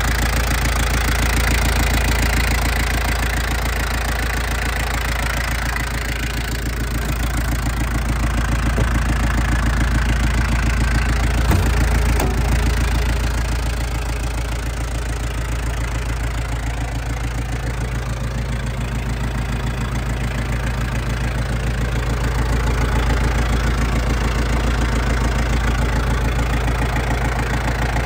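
Yanmar FX32D compact tractor's 32 hp four-cylinder diesel engine idling steadily. One brief knock about eleven seconds in.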